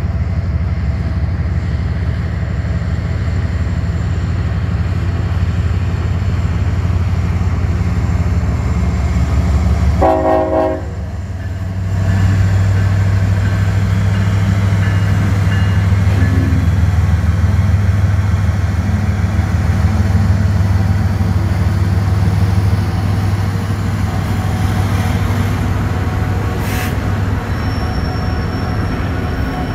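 Norfolk Southern diesel-electric freight locomotives pulling a train out of the yard under power, a deep steady engine drone that grows louder as the units pass. About ten seconds in a train horn sounds one short blast.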